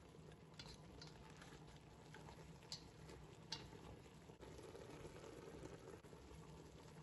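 Chunks of meat sizzling and bubbling faintly in their juices in a stainless steel pot while being browned and stirred with a spatula, with a few light clicks of the spatula against the pot in the first half.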